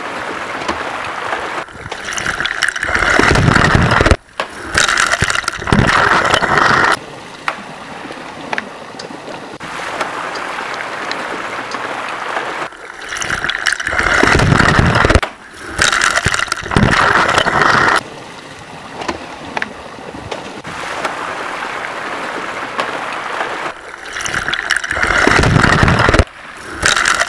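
Water splashing and rushing, loud surges over a steadier churning noise, the same pattern repeating about every eleven seconds as if looped.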